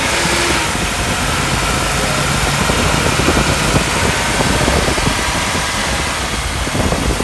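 A GMC van's Vortec 5.7 small-block V8 idling steadily.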